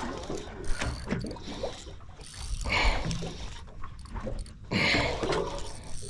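Spinning reel's gears and drag ticking as a hooked fish that has just dived again pulls against the bent rod, with wind and sea noise beneath. It swells louder twice, near the middle and again about five seconds in.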